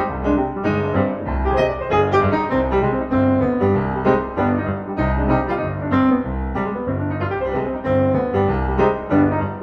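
Background piano music, a busy run of notes over repeated low bass notes.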